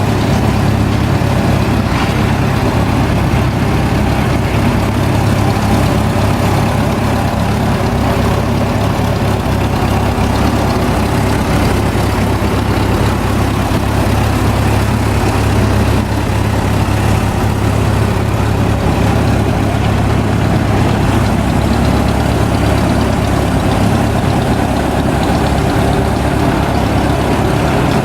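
Heavy engine of an antique construction machine idling steadily and loudly, a deep, even hum.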